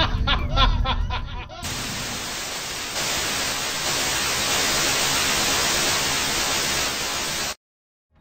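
A laugh trailing off, then steady static hiss for about six seconds, a little louder after the first second or so, that cuts off suddenly into silence.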